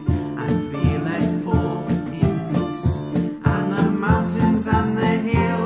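A man's voice, multi-tracked into several harmony parts, sings a lively hymn over upright piano and a cajón beating a steady rhythm.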